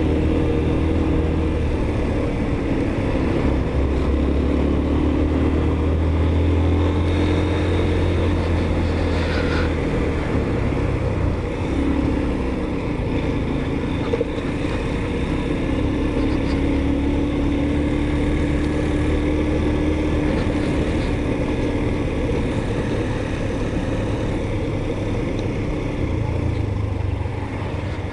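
Motorcycle engine running while riding, a steady low rumble whose pitch rises and falls gently with the throttle.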